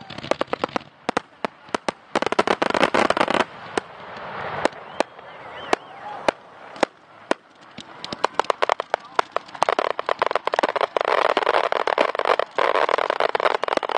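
Aerial fireworks going off: many sharp bangs, some in rapid strings, with dense stretches of noise and crackle at about 2–3.5 s and again from about 10 s on.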